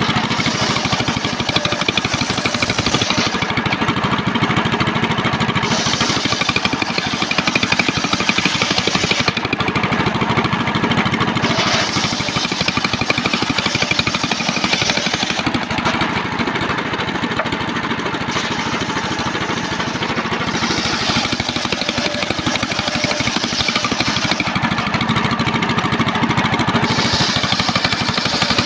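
Home-built circular table saw ripping old trembesi (rain tree) planks. The blade's high cutting sound swells and drops with each pass through the wood, a few seconds apart, over the steady running of the engine that drives it.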